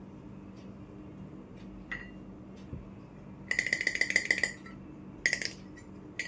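Miniature toy kitchenware clinking: a rapid run of light, ringing taps about halfway through, then two short clinks near the end.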